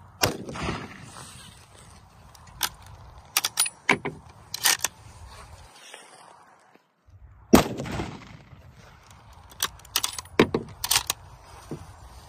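Two shots from an Eddystone Model 1917 bolt-action rifle in .30-06, about seven seconds apart, the second louder. Between and after them come sharp metallic clicks of the bolt being worked.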